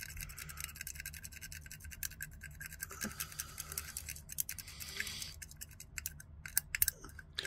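Wooden stir stick scraping and ticking against the inside of a small plastic cup as thinned paint is stirred: a faint, quick, irregular scratching.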